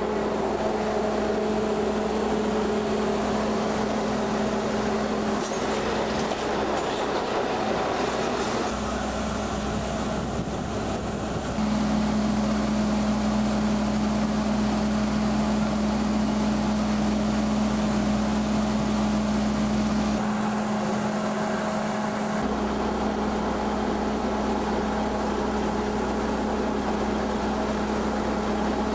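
KiHa 20 diesel railcar's DMH17 diesel engine running steadily, a constant drone with a steady hum. The sound changes abruptly a few times, jumping louder about twelve seconds in.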